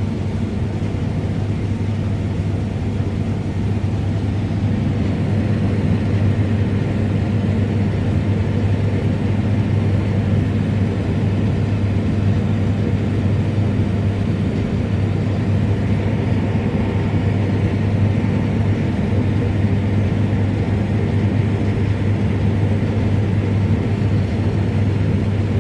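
Combine harvester running steadily while harvesting wheat, a constant low drone that does not change.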